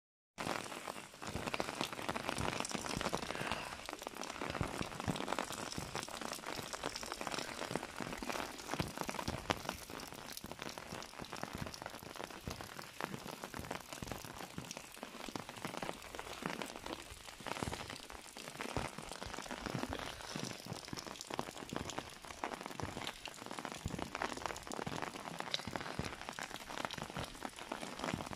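Steady rain falling on the garden's leaves and wet ground, an even hiss dotted with many small ticks of individual drops.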